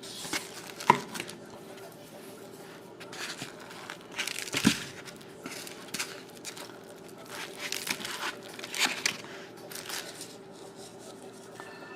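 Packaging crinkling and tearing in irregular bursts, with sharp knocks about a second in and near the middle.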